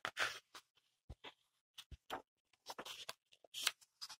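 Pages of a picture book being handled and turned: faint, short paper rustles and taps, the loudest just after the start and again near the end.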